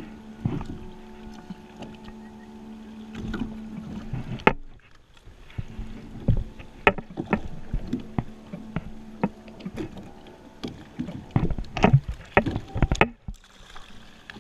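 A boat engine running with a steady pitched drone that drops out for a moment about four seconds in and stops near the end. Over it come sharp knocks and clatter from handling a hooked bonnethead shark at the side of the hull; the loudest knocks fall near the end.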